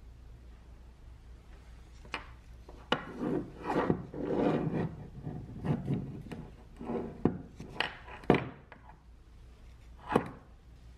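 Rusty metal clamp-on bench vise handled with gloved hands: knocks and scraping as it is picked up, turned over and set down on a hard surface. The sharpest knock comes about eight seconds in, and a last one about ten seconds in.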